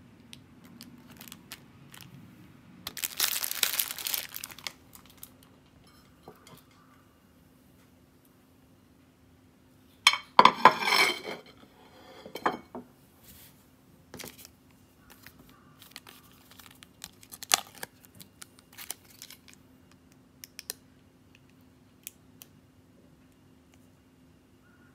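Plastic food packaging crinkling and rustling as it is handled, in two louder bursts about 3 s and 10 s in, followed by scattered small clicks and rustles. A faint steady hum runs underneath.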